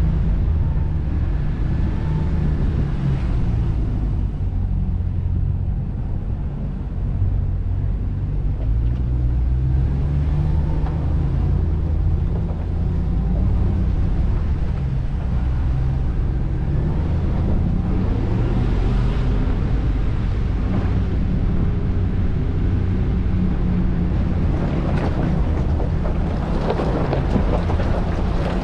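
Vehicle driving slowly on a rough dirt trail: a steady low engine and tyre rumble, with some wind on the microphone.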